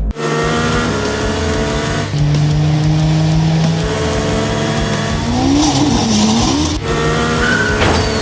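Car engine sound with tyres squealing, its pitch wavering up and down about two-thirds of the way through and breaking off suddenly shortly before the end.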